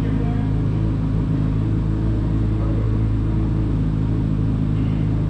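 Chevrolet Corvette C8 Z06's flat-plane-crank V8 idling steadily.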